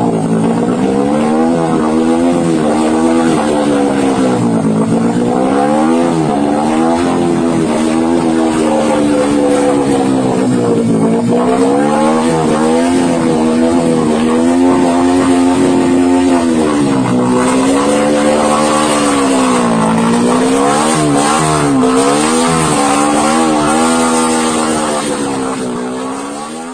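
Sport motorcycle engine running half-submerged in floodwater, revved up and down again and again with the throttle. It fades out near the end.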